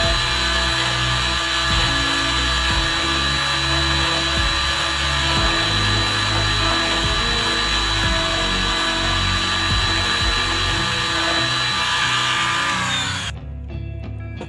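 Handheld electric drill running at a steady high whine as it bores into a PVC strip joint, slowing slightly and stopping about 13 seconds in.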